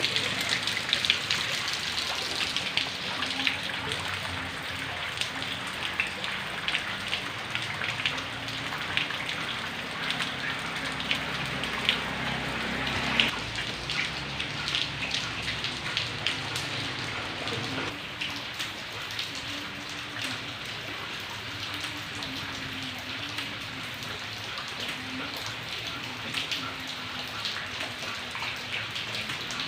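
Heavy rain falling steadily, with many close drops striking a surface as sharp, irregular ticks over the hiss.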